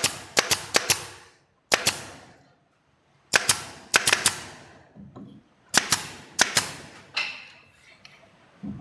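Pneumatic nail gun firing nails into wood: sharp cracks in quick clusters of two to four shots, about a dozen in all, with short pauses between the clusters.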